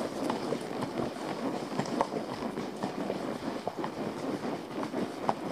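Hoofbeats of a ridden horse moving briskly along a sandy forest track, heard from the saddle: a steady rushing noise with many small clicks and knocks through it.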